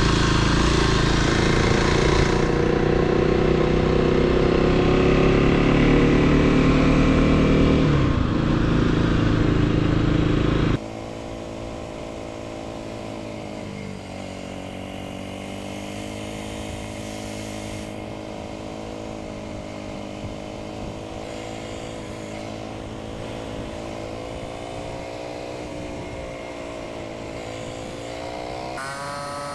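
Motorbike engine running under way with wind rush for about the first eleven seconds, then suddenly quieter and steadier, its pitch dipping once and rising near the end.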